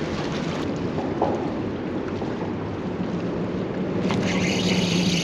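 Steady wind and water noise on the microphone, with a low steady hum joining about three seconds in. About four seconds in, a fishing reel starts winding in quickly as a hooked fish is fought on a bent rod.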